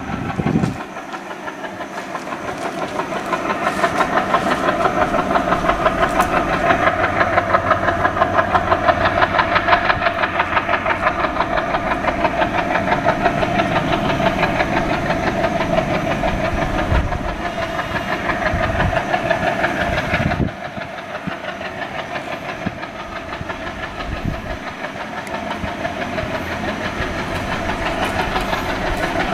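WDG 3A diesel locomotive's turbocharged ALCO 251 sixteen-cylinder engine working hard at full power as it accelerates a passenger train, a steady high whine over a pulsing engine beat.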